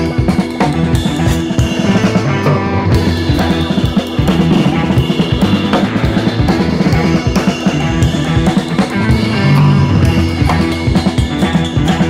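Background music with a drum kit playing a steady beat.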